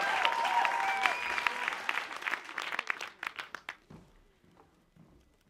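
Audience applause with a few whoops, thinning to scattered claps and dying away about four seconds in.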